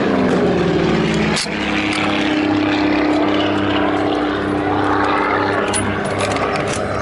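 Propeller-driven piston-engine aircraft passing low overhead. The engine note drops in pitch over the first second or so, then holds a steady drone. A single sharp crack sounds about a second and a half in.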